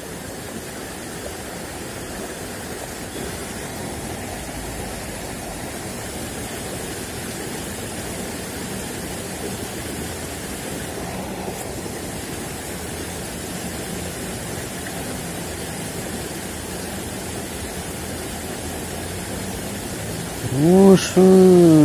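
Steady rush of water flowing in an irrigation ditch, even and unbroken. A man's voice speaks briefly near the end.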